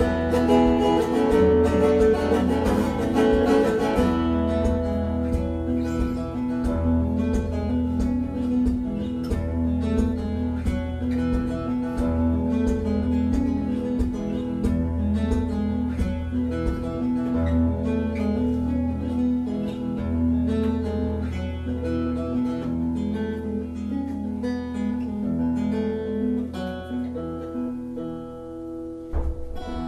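Solo acoustic guitar playing an instrumental passage, picked and strummed notes over a steady bass line; the playing dies away near the end.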